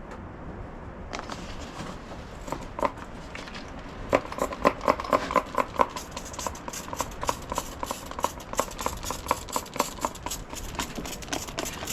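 A quick run of sharp clicks or taps, about four to five a second, starting about four seconds in, over a steady hiss.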